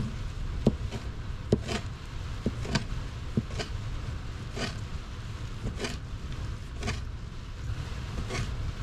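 A small kitchen knife chopping fresh dulse seaweed on a paper plate on a wooden worktop, giving irregular short cutting taps, roughly one or two a second. A steady low rumble runs underneath.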